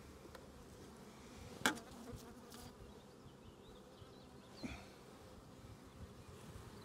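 Faint, steady buzz of honeybees from an open hive, a colony the beekeeper calls lovely and calm. Two light knocks cut through it, the sharper one about a second and a half in and a fainter one near five seconds.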